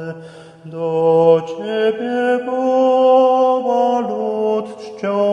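A slow hymn to St. Anthony sung in Polish, in long-held notes that step from pitch to pitch, with a short break for breath about half a second in.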